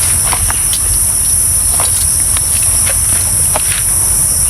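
Steady, high-pitched insect chorus, with scattered light taps and clicks.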